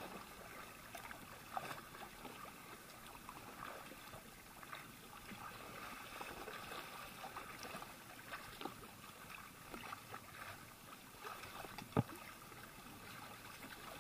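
Kayak paddle strokes dipping into calm sea water, soft irregular splashes and drips, with one sharp knock near the end.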